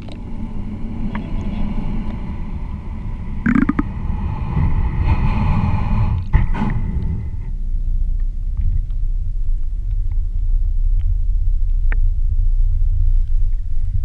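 Low, steady underwater rumble of moving water heard through a GoPro's waterproof housing on a shallow sandy seabed, with a few sharp clicks and a faint whine in the first half that fades out about halfway.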